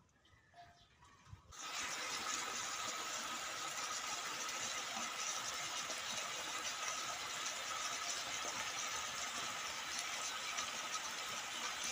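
Beef slices and vegetables sizzling steadily on a hot grill pan. The sizzle starts suddenly about a second and a half in, after near quiet.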